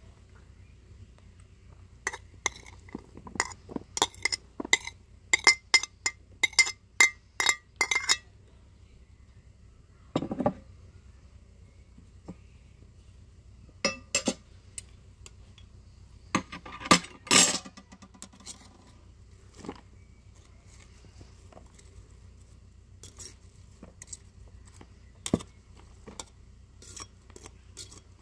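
Kitchen utensil clinking against a dish: a quick run of sharp, ringing taps in the first eight seconds, then scattered clinks.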